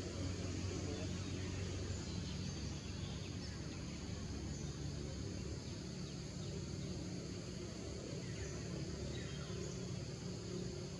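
Outdoor forest ambience: a steady low rumble under a constant high insect drone, with a few faint, brief bird chirps.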